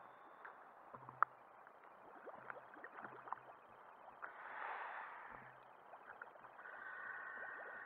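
Water lapping and gurgling against a camera at the water's surface, with many small clicks and splashes and a louder wash of water about five seconds in.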